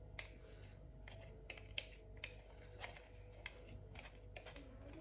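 Cocoa powder being sifted through a small sieve over a bowl: faint, irregular light clicks and taps of the sieve, over a faint steady hum.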